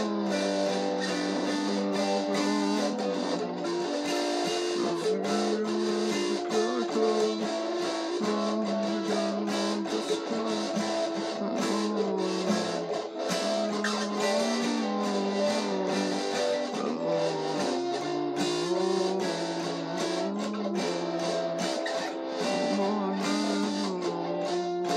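Acoustic guitar being played, with strummed chords ringing and changing steadily.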